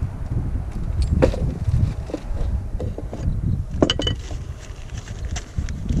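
Wind buffeting the microphone as a steady low rumble, with a few scattered light knocks and clicks; one near four seconds in is a short ringing clink.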